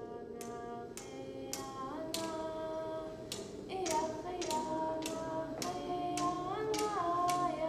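Yup'ik song: voices singing over a frame drum struck in a steady beat about twice a second.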